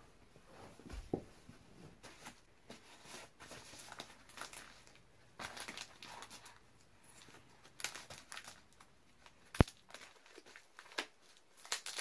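Purple package wrapping crinkling and rustling in hands as it is worked open by hand, in short irregular bursts, with one sharp click about nine and a half seconds in.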